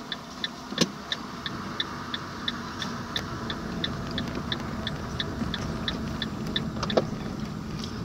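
Car driving on an unpaved dirt road: a steady low rumble of engine and tyres. Over it runs a regular high ticking, about three a second, that fades after the first few seconds, and there are two sharp knocks, one near the start and one about seven seconds in.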